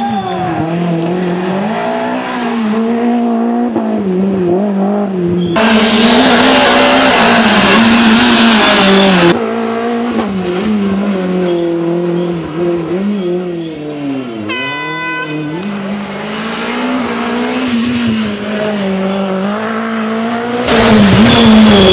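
Renault Clio Williams Group A rally car engine revving hard, its pitch climbing and dropping repeatedly through gear changes and lifts for corners. A loud rushing noise covers it for about four seconds near the middle, and a short horn blast sounds about two thirds of the way through.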